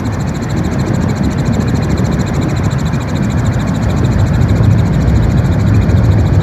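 Helicopter running: a loud, steady drone of rotor and engine noise that grows a little louder about halfway through.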